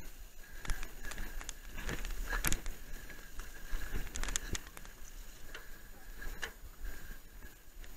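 Mountain bike rolling fast down a rocky singletrack: tyres crunching over loose stones, with irregular clicks, knocks and rattles from the bike.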